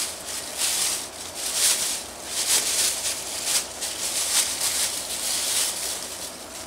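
Thin plastic shopping bag crinkling and rustling in the hands as it is unwrapped, in a string of uneven bursts.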